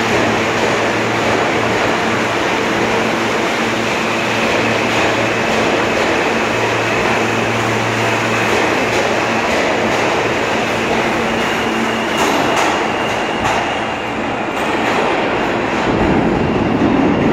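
New York City subway train running past the platform of an underground station: a steady loud rumble of wheels and motors with a high steady whine from about four seconds in, then sharp clicks of wheels over rail joints near the end as the last cars clear the station.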